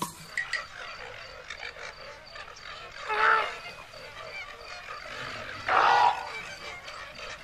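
Two loud animal calls, one about three seconds in and another near six seconds, over a steady background of wild outdoor ambience.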